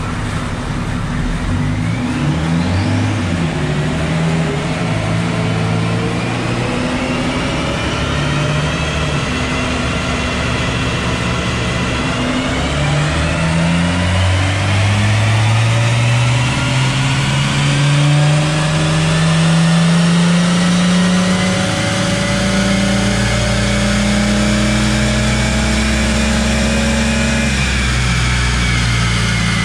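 BMW X5's M57 straight-six diesel making a full-throttle pull on a chassis dyno, climbing in pitch through the gears with a shift about twelve seconds in, loudest a little past halfway. A high whine rises with the revs, and near the end the pitch falls away as it comes off the throttle.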